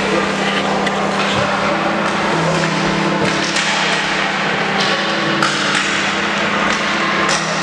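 Ball hockey sticks clacking against the ball and the concrete floor, a few sharp knocks ringing in a large echoing rink over a steady low hum.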